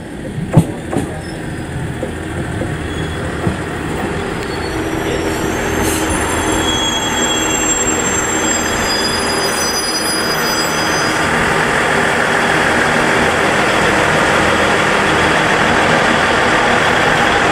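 JR KiHa 110 series diesel railcar pulling into the station along the platform. Its rumble grows louder as it passes close, with thin high brake or wheel squeals in the middle and a sharp click about half a second in.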